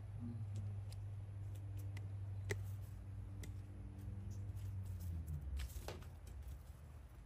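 Small clicks and crinkles of betel leaves being handled and rolled around seasoned beef, with a short louder rustle a little before six seconds in. A low steady hum runs underneath and drops in pitch about five seconds in.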